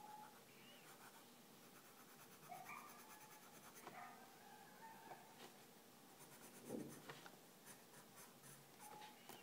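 Faint scratching of a coloured pencil drawing on sketchbook paper, in short irregular strokes.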